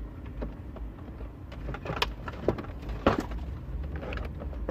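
Plastic dashboard trim and switch connectors being handled and pushed into place: scattered clicks and knocks, the loudest a few about two to three seconds in.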